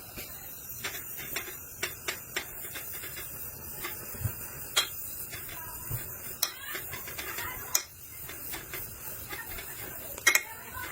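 Scattered light metallic clinks and taps, as of steel parts or tools being handled on a workbench, over a steady hiss, with a few sharper clinks near the end.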